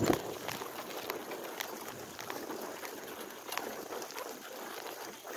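Bicycle with nearly flat tyres rolling along a paved path: steady rolling noise with scattered clicks and knocks from the bike rattling over the surface. The loudest knock comes right at the start.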